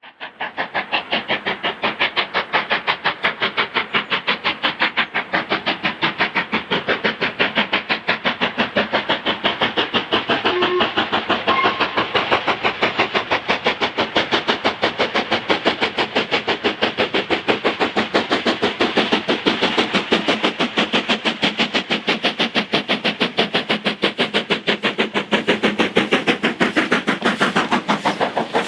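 LMS Black Five two-cylinder steam locomotive working hard, its exhaust beating in a fast, even rhythm of about five beats a second, fading in at the start.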